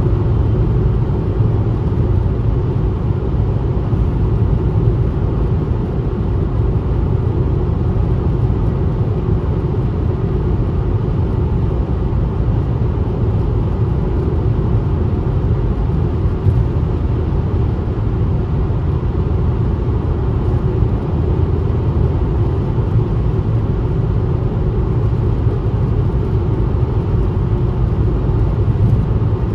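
Steady low rumble of a car driving at highway speed, road and engine noise with no change in pace.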